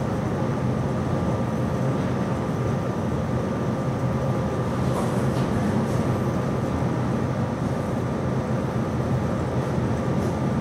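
Steady mechanical hum with an even rushing noise and a thin, high steady tone, like a running fan or air-conditioning unit in the room.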